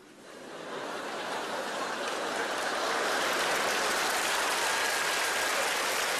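Studio audience applauding: the clapping swells up over about three seconds, then holds steady.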